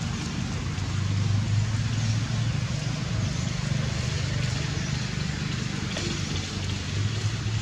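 Steady low engine hum over an even hiss of outdoor background noise.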